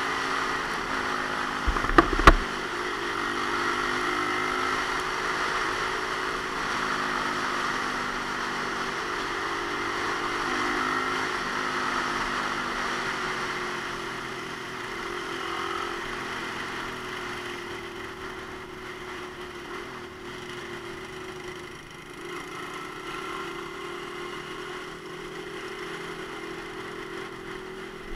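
Romet Ogar Caffe 125's small single-cylinder engine running at a steady cruise on a wet road, its pitch drifting slightly, under wind rush and tyre hiss from the wet surface. A few sharp knocks about two seconds in, and the sound eases off somewhat in the second half.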